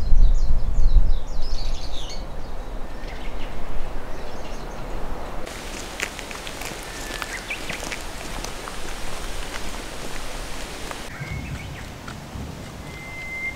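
Outdoor ambience: wind buffeting the microphone as a loud low rumble in the first two seconds and again briefly near the end, over a steady rustling hiss. Small birds chirp now and then, with one held whistled note near the end.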